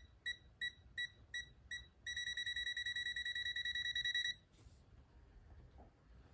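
Themisto TH-M98 digital multimeter in non-contact voltage (NCV) mode beeping as it detects the voltage of a live power cable: short high beeps about three a second, then for about two seconds a fast, almost continuous beeping, a stronger detection, which stops about halfway through.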